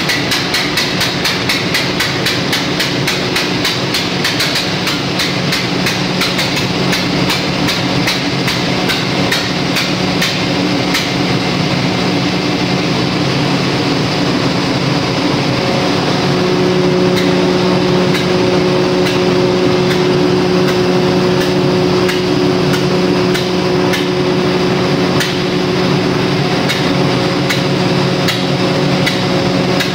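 Perkins 4006 six-cylinder diesel generator engine running under load, with a fast, regular metallic knocking over its steady hum: the sign of wrong injector timing. About halfway through, the hum gets a little louder and steadier.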